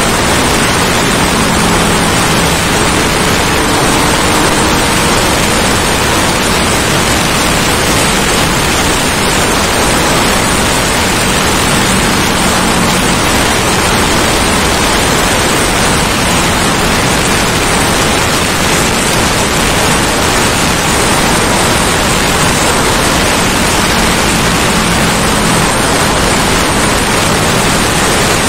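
Steady wind rushing over the microphone of a motorcycle riding at highway speed, with a faint low engine hum coming and going underneath.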